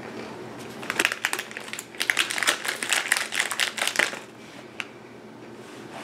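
Plastic snack-bar wrapper crinkling on and off, from about a second in until about four seconds in.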